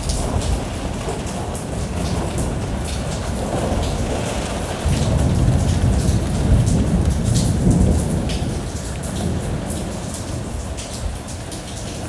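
Rain pattering on a window pane, heard from inside the house, with single drops tapping on the glass. A low thunder rumble comes in about five seconds in and dies away over the next few seconds.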